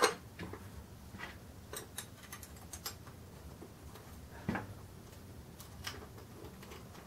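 Scattered small clicks and taps from handling the wooden buttstock of an airsoft RPK and working the screws of its battery buttplate with a screwdriver. A sharp click comes right at the start and a louder knock about four and a half seconds in.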